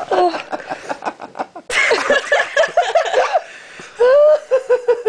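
Hard, high-pitched laughter. A run of quick laugh pulses starts about two seconds in, and near the end comes one long, drawn-out high note that falls slightly.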